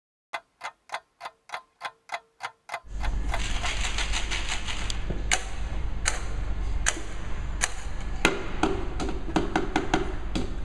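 A run of nine even ticks, about three a second, like a clock sound effect. After about three seconds it gives way to children striking tin cans and a plastic bottle as drums: sharp knocks every second or so over a low rumble.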